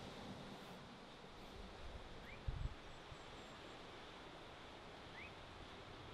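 Faint outdoor ambience: a steady hiss with two short rising bird chirps, about three seconds apart, and a soft low bump about two and a half seconds in.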